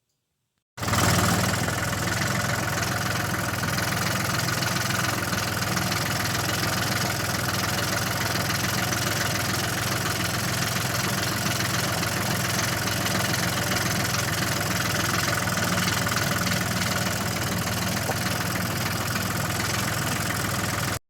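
Tractor engine running steadily at an even speed, cutting in abruptly about a second in.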